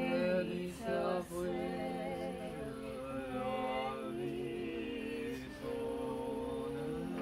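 Traditional Georgian polyphonic singing: several voices singing together in harmony, holding long notes, with a low part sustained under higher moving lines.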